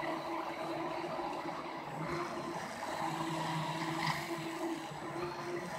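Hand-held immersion blender running in a jar of soaked lentils and water: a steady motor hum over churning, sloshing liquid, the motor note dipping briefly a couple of times.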